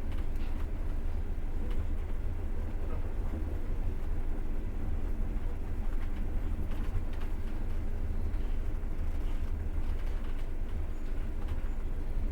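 Passenger train running on rails, heard from inside the carriage: a steady low rumble of the wheels and running gear with a few faint clicks.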